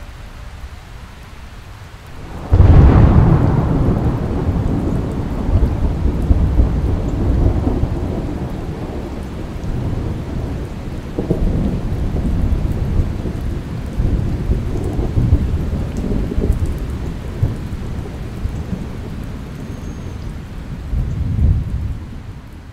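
Thunderstorm: a sudden loud thunderclap about two and a half seconds in, then rolling thunder over steady rain, swelling again several times.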